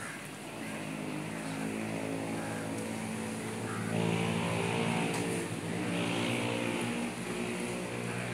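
A motor vehicle's engine running at a steady pitch, growing louder over the first few seconds.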